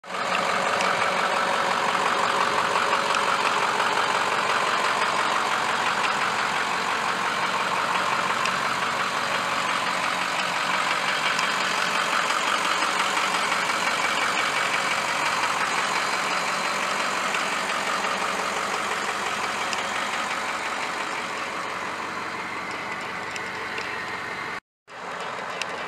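Ford F-550 dump truck's engine idling steadily, growing gradually quieter, with a brief dropout near the end.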